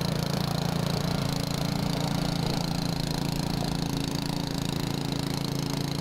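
Engine running steadily at a constant speed, an even hum with a hiss over it.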